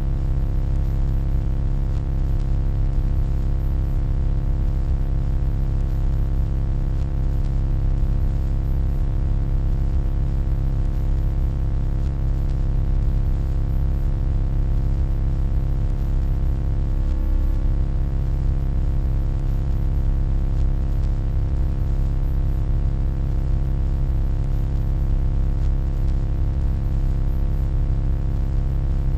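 Steady electronic hum, deep and even, made of many stacked tones, with a brief wobble in pitch about two-thirds of the way through.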